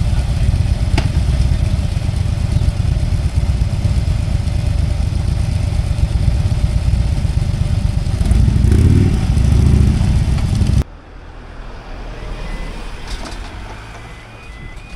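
Motorcycle engines idling with a low rumble, swelling as the bikes rev up about nine seconds in. The sound then cuts off abruptly, giving way to much quieter traffic noise.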